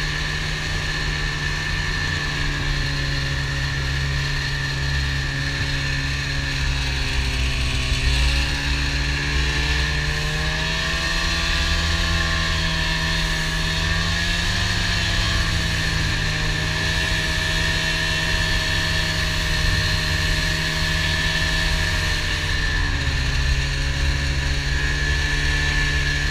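Snowmobile engine running under way, its pitch rising about eight to ten seconds in and dropping back a few seconds before the end, over a steady high whine and a low rumble.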